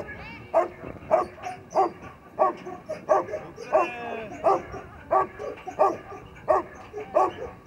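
Belgian Malinois barking steadily for a helper's bite sleeve in protection training, about one and a half barks a second, with a brief high whine about four seconds in.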